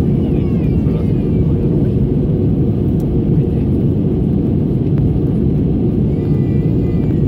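Steady cabin noise of an Airbus A320 on approach, heard inside the cabin at a window seat over the wing: an even, deep roar of jet engines and airflow.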